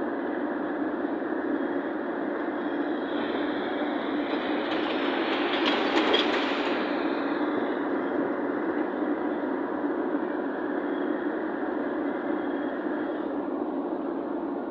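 Steady road and tyre noise heard inside a car cruising at highway speed, with a brief louder rush of noise about six seconds in.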